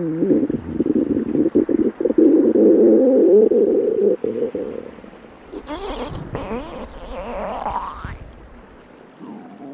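Cartoon stomach growl sound effect: a low, wobbling rumble with crackly gurgles for about five seconds, then a few rising, squeaky gurgles, fading out near the end.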